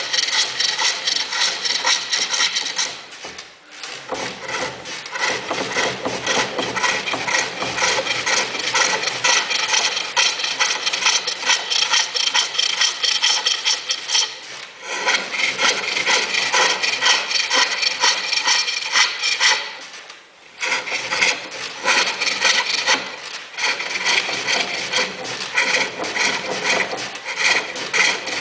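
A turning tool scraping against a spinning workpiece on a lathe, a rapid, rough chattering cut. The cutting stops briefly twice, about three seconds in and again past the twenty-second mark, then resumes.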